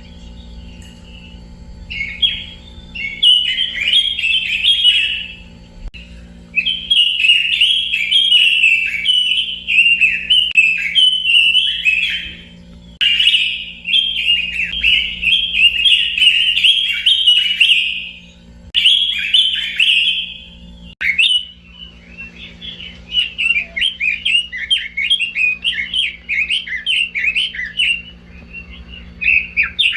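A Pekin robin (red-billed leiothrix) singing: long runs of quick, high chirping notes lasting several seconds each, broken by short pauses.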